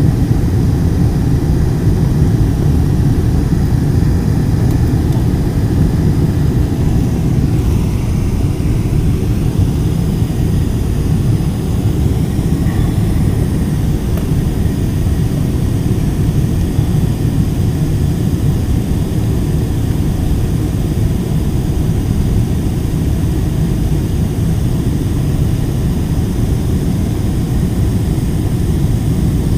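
Steady low rumble inside the cabin of a four-engined Boeing 747 on final approach with its flaps extended: jet engine and airflow noise heard from a seat beside the wing.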